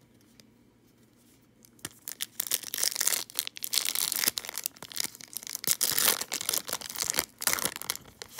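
Foil-lined wrapper of a baseball trading-card pack crinkling and tearing as it is ripped open by hand. It is a dense, crackly rustle that starts about two seconds in and runs on in uneven spurts until near the end.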